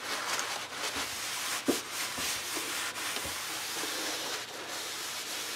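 Steady scraping and rubbing of a hand abrasive on a rough cast-iron lathe tailstock casting, with a few light knocks.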